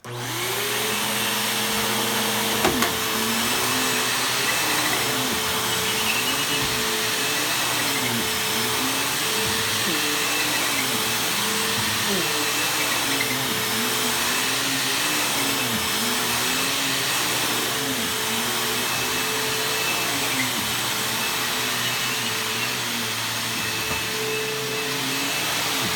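Bissell bagless upright vacuum cleaner switched on and running steadily on carpet. Its motor pitch wavers up and down about every two seconds.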